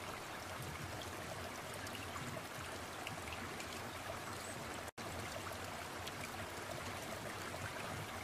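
Steady running water, an even trickling rush, broken by a momentary dropout about five seconds in.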